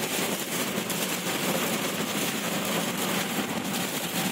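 Steady noise heard from inside a car driving on a rain-soaked road in heavy rain: rain on the body and tyres on the wet road, with the engine running underneath.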